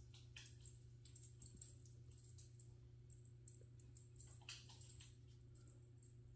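Faint scattered clicks and rustles of a small puppy's claws on a hardwood floor and his fabric dog bed shifting under him, over a steady low hum.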